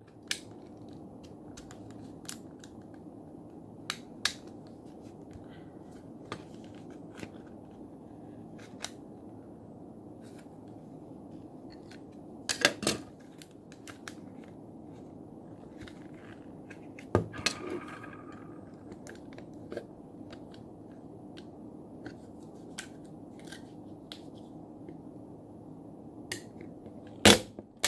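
Plastic back cover of a Casio fx-570MS scientific calculator clicking and snapping as it is pried off its clips. Scattered small clicks, with louder snaps about halfway through, about two-thirds through and, loudest, near the end, over a steady low hum.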